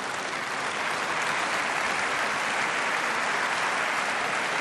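Large seated assembly applauding, a dense, steady clapping.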